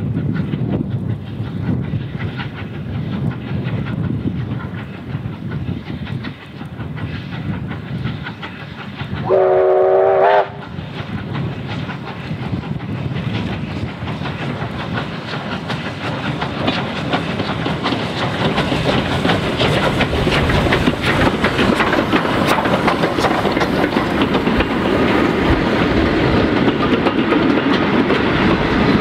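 Victorian Railways J class steam locomotive J549 working a train as it approaches. It sounds one whistle blast about a second long, about nine seconds in. The train then grows louder as it draws near and passes, with the carriage wheels clicking over the rail joints near the end.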